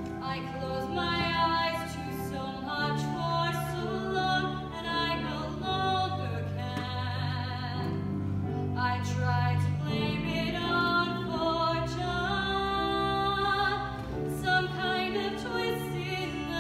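A woman singing a solo in an operatic style, holding notes with a wide vibrato, over a sustained instrumental accompaniment.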